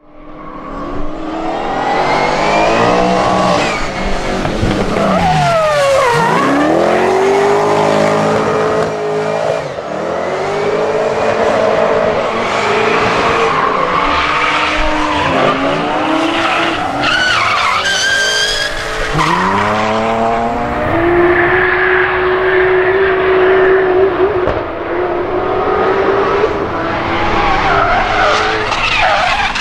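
Drift cars' engines revving hard, the pitch dropping and climbing again over and over as they slide, with tyres squealing and skidding. The sound fades in at the start.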